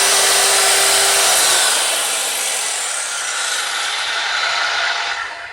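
An old Craftsman 2 1/8 horsepower circular saw running, a loud high whine with a steady tone under it. About a second and a half in the tone stops and the sound eases down, then dies away near the end.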